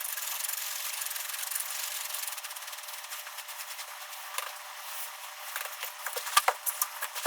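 Steady rubbing and scratching from hands working the rod parts during the epoxy repair, then a run of light clicks and taps over the last couple of seconds.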